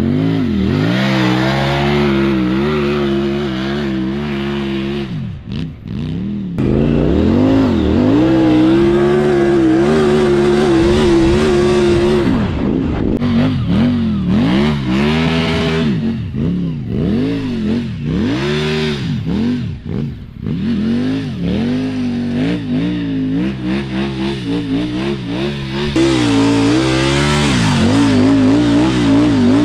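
Triumph Tiger 900's three-cylinder engine roaring under hard throttle in sand, revs climbing and falling again and again. It dips briefly about a fifth of the way in, and there is a long stretch of quick, short rev swings in the middle.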